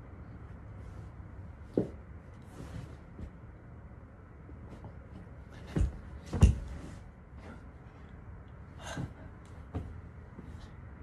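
Dull knocks and bumps from a person shifting their weight on all fours on a bed piled with pillows and comforters. There are a handful of separate thuds, the loudest two close together about six seconds in, over a low steady hum.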